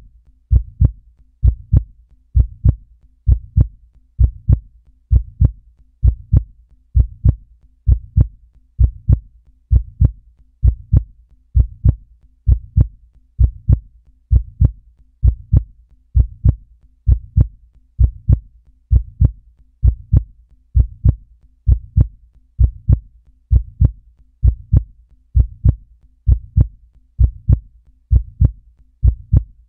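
Steady, slow low thumps in pairs, about one pair a second, like a heartbeat.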